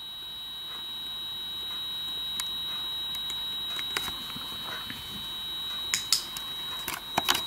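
A steady high-pitched electronic tone over faint hiss, with a few sharp clicks in the second half.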